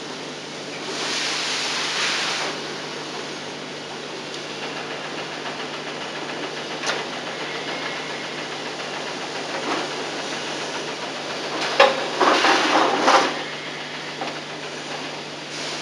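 BMW E31 power seat's electric adjustment motors running in two short bursts, one about a second in and one near the end, with a few clicks between, over steady tape hiss. This is the functional check of the seat after the height-adjustment motor and flexible drive shafts are refitted.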